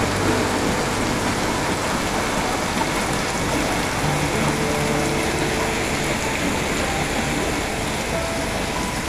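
Heavy rain pouring down, a dense steady hiss of rain hitting wet pavement, with a low hum now and then underneath.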